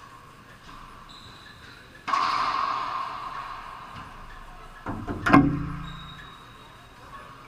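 Two loud hits echoing around an enclosed racquetball court. The first comes about two seconds in and dies away slowly over a couple of seconds. The second, the loudest, is a sharp knock with a low ringing after it, just after five seconds.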